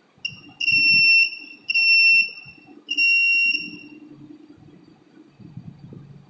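Small electric buzzer in a hand-wired circuit beeping as a wire is touched to it: a short chirp, then three high-pitched beeps of about half a second each, roughly one a second. Faint handling rustle near the end.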